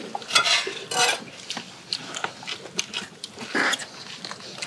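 Close-up eating sounds: people chewing and slurping spicy kimchi stew, with scattered light clicks of spoons and chopsticks against stainless steel bowls.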